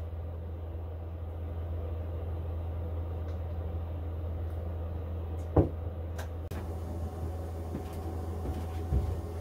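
Steady low hum, with one sharp knock a little past halfway and a few soft knocks near the end.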